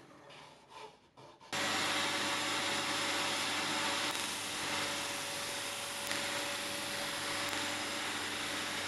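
A cordless drill spinning a sanding disc pad pressed against an end-grain wooden bowl turning on the lathe: power sanding, a steady loud rubbing noise over a constant motor hum. It starts abruptly about a second and a half in.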